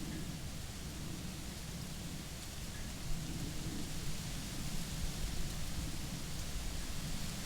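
Steady outdoor ambience in a forest: an even hiss over a low, fluctuating rumble, with no distinct single event.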